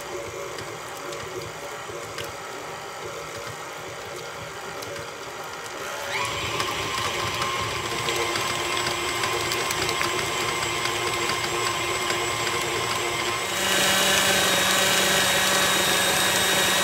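KitchenAid Artisan stand mixer running with its flat paddle beating softened cream cheese. It starts on low and is stepped up to a higher speed about six seconds in and again about fourteen seconds in, getting louder each time.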